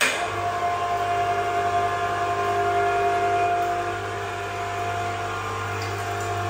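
Steady machine hum that starts abruptly, with a low drone under an even mid-pitched whine, like a running electric motor or blower.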